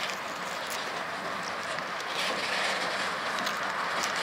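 Centerbeam flatcars loaded with lumber rolling along the track as they are shoved with no locomotive on the leading end: a steady noise of steel wheels on rail with a few faint clicks, growing a little louder as the cars come closer.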